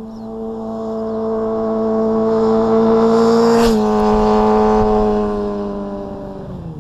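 A sportbike passing close by at speed on a steady engine note. It grows louder as it approaches, the pitch drops sharply as it goes past about four seconds in, and then it sinks lower and fades as it rides away.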